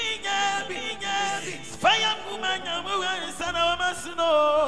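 A man singing a gospel song into a handheld microphone over a live band, his voice scooping up into long held notes, with a strong rise about two seconds in and a sustained note near the end.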